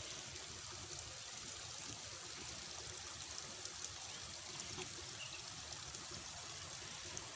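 Faint, steady sound of running water trickling.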